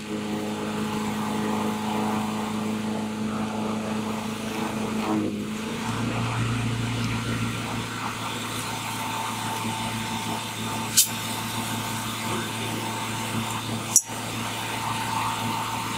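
The energized high-voltage demonstration trailer gives a steady electrical hum over a hiss. Two sharp cracks come near the end, about three seconds apart.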